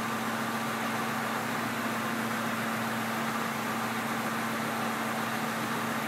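Steady machine hum with a constant low tone, unchanging in level.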